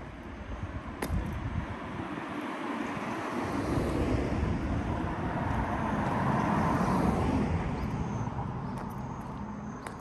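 A vehicle driving past, its sound swelling to a peak about two-thirds of the way through and then fading away.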